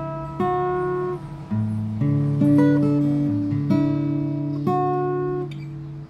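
Acoustic guitar playing chords, a new chord struck about every second and left to ring.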